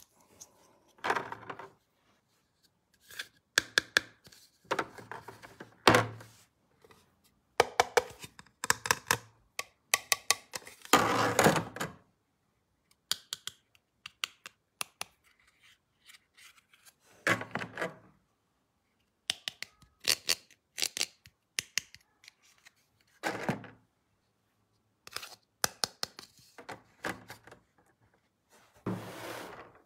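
Objects being handled: irregular clicks and thunks mixed with short scraping or rubbing sounds, with brief silent gaps between them.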